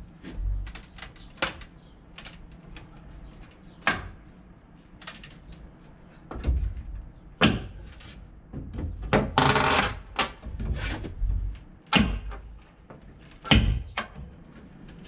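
A hammer or pry tool knocking on the wooden boards and framing of a house being taken apart by hand, in irregular sharp blows about once a second. About nine seconds in there is a longer rasping, scraping noise of about a second, typical of a board being worked loose.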